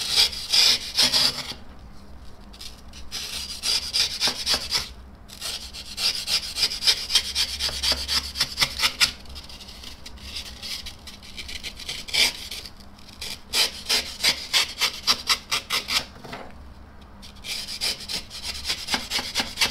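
Sharp utility-knife blade paring rigid polyurethane foam in quick, short scraping strokes. The strokes come in several runs with brief pauses between them.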